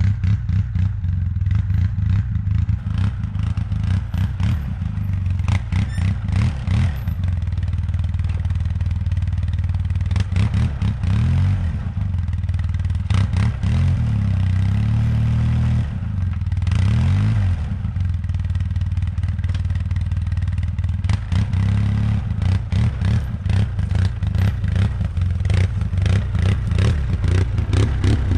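2005 Polaris Sportsman 700 EFI ATV engine running and revving up and down repeatedly while its rear wheels spin on ice under a light snow cover. The ATV cannot climb the grade because its all-wheel drive is not engaging. Clattering knocks run throughout.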